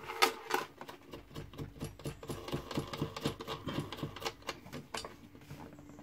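A USB socket being tightened by hand into its hole in a plastic console panel: a quick, irregular run of clicks and rattles that dies away about five seconds in.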